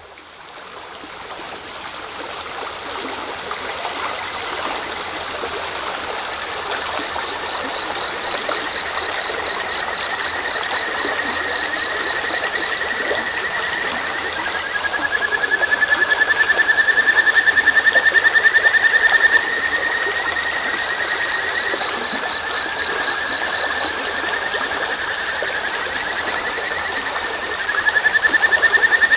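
River babbling under a chorus of crickets trilling and kajika frogs (Buergeria buergeri) calling. A loud, rapid, slightly rising trill comes in about halfway through and again near the end. The sound fades in at the start.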